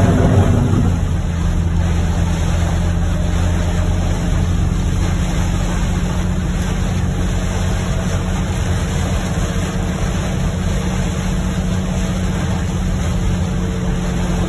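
Steady noise inside a car's cabin driving on a rain-soaked highway in heavy rain: tyres running on the wet road and rain on the car, over a low engine and road hum, a little louder for about the first second.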